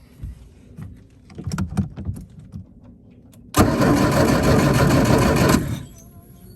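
A series of clicks and knocks, then an engine bursts into loud running about three and a half seconds in and dies away after about two seconds.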